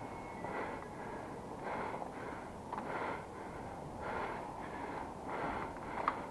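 A person breathing close to the microphone, about one breath a second, with a sharp click near the end.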